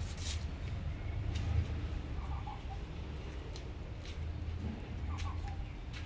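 Outdoor garden ambience: a steady low rumble on the microphone with a few faint clicks, and two short, faint animal calls, about two and five seconds in.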